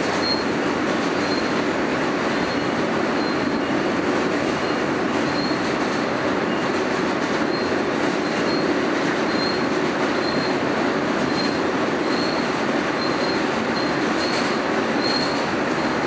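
Interior of an R160A subway car running at speed: a steady rumble and hiss of steel wheels on rail, with a short faint high squeak repeating a little more than once a second.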